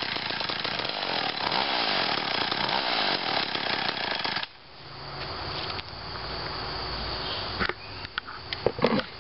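1986 McCulloch Mac 110 two-stroke chainsaw (2.0 cubic inch) running at high revs, its pitch rising and falling as it cuts log wood. About halfway through the sound drops off suddenly, leaving a low rumble and a few knocks near the end.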